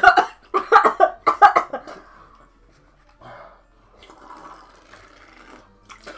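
A person coughing hard in a quick string of bursts for the first couple of seconds, then quieter water sloshing and bubbling as faces are pushed into buckets of water to bob for apples.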